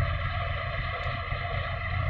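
Steady drone of a ship's engine, with wind rumbling on the microphone.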